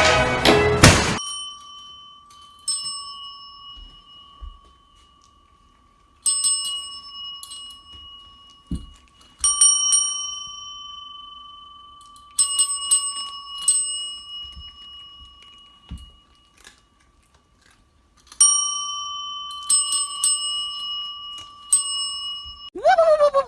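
A small metal bell rung in several bursts of a few quick strikes, each ring lingering and slowly fading, with quiet gaps between the bursts.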